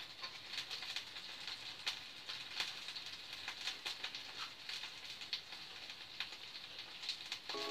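Sausages frying in oil in a pan, a steady sizzle with small crackles and pops. Music comes in right at the end.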